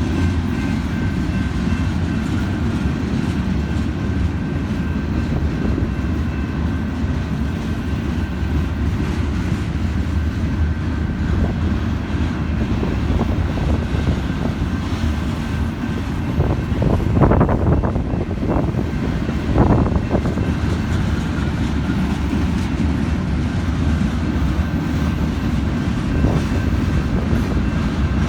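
Freight cars of a manifest train rolling past, a steady low rumble of wheels on rail, with a few louder clanks about two-thirds of the way through.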